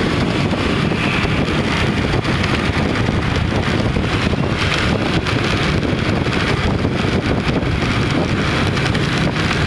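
Continuous wind buffeting on the microphone over steady road and traffic noise, recorded while moving through wet streets.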